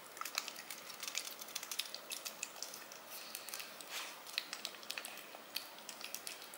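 A domestic cat licking a lickable treat squeezed from a tube held to its mouth: faint, quick, irregular wet clicks of its tongue.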